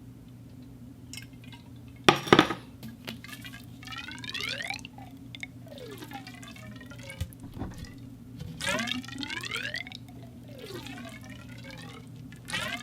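Water sloshing and gurgling inside a conduit pipe: a loud splash about two seconds in, then several bursts of resonant tones sweeping up and down in pitch.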